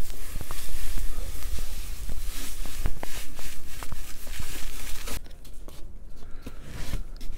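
Salt pouring from a paper pack into a plastic container over meat, a steady hiss of falling grains with small ticks. The pouring stops about five seconds in, and a hand then spreads the salt with light scratching.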